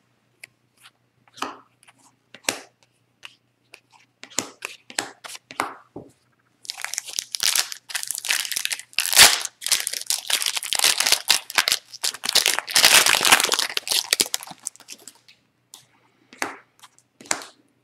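Trading cards being handled, with light clicks and taps, then a few seconds of dense crinkling and tearing that fits a foil hockey card pack wrapper being torn open and crumpled. The crinkling starts about seven seconds in and stops around fifteen seconds.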